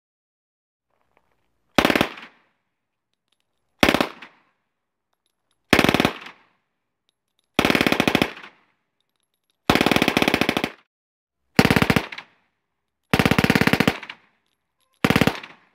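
Soviet PPSh-41 submachine gun firing 7.62x25mm Tokarev on full automatic, about 900 rounds a minute. There are eight short bursts roughly two seconds apart, the middle ones the longest at about a second.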